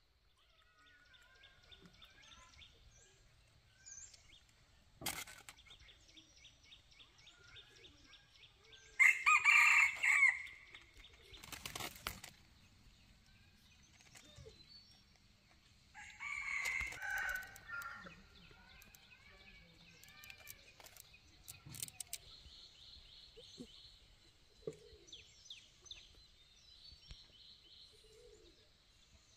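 Rooster crowing twice, about nine seconds in and again around sixteen seconds, over a faint high pulsing trill, with a couple of sharp knocks in between.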